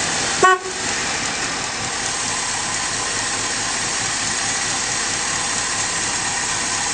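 Chevy 305 TBI V8 running steadily on wood gas from an onboard gasifier, with a steady hiss. A brief pitched toot sounds about half a second in.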